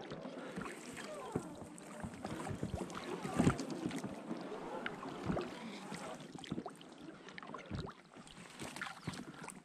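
Irregular rustling, swishing and scuffing of a person moving on foot through reeds at the water's edge, with scattered small knocks.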